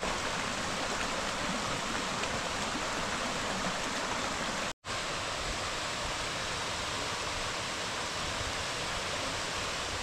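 Steady rush of a mountain creek tumbling over rocks in a small cascade, with a brief dropout about halfway through.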